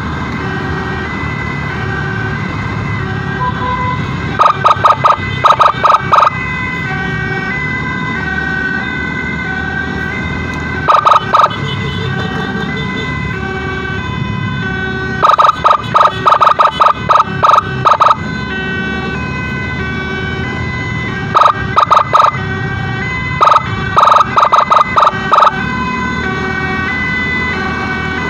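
Emergency siren sounding continuously in a stepping pattern, with low road and engine rumble beneath it. Five times it is cut through by clusters of rapid, loud short beeps, each cluster lasting about one to three seconds.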